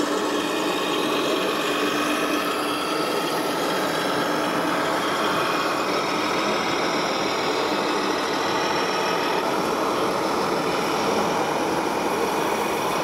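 Sound modules in electric RC model trucks playing a simulated diesel truck engine, running steadily at idle over the noise of a busy hall.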